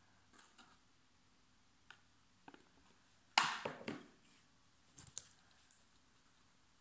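Small plastic and wooden utensils being handled: a plastic spoon, cup and wooden craft stick clicking and tapping against plastic containers, with one louder, noisier clatter lasting under a second about halfway through.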